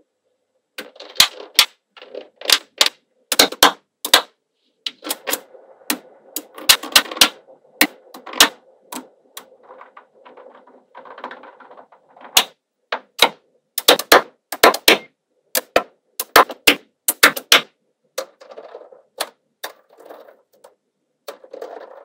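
Small magnetic balls clicking and snapping together as strips of them are set onto a wall of balls. The sharp clicks come in irregular clusters, with a softer rattle of balls shifting between them.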